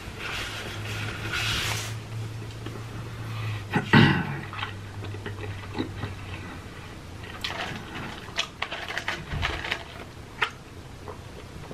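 Light handling sounds at a table of fast food: scattered small clicks and rustles as a hand goes among French fries and paper packaging, with one thump about four seconds in and a low steady hum through the first half.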